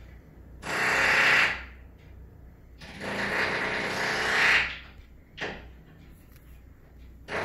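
Power drill run in repeated bursts: one about a second long, a longer one of nearly two seconds, a brief one, and another starting at the very end, each cutting in and out abruptly.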